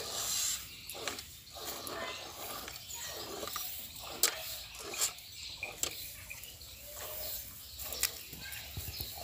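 Cow being hand-milked into a steel pail: rhythmic squirts of milk hitting the milk already in the pail, with a few sharp clicks.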